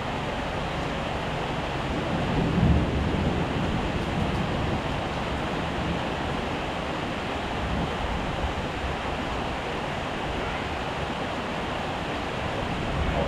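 Heavy rain falling steadily in a dense, even hiss. A brief low rumble swells up about two and a half seconds in.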